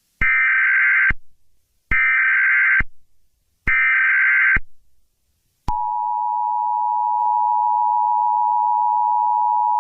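Emergency Alert System broadcast opening: three SAME header data bursts, each a buzzy electronic warble just under a second long with short gaps between, then the steady two-tone EAS attention signal starts and holds.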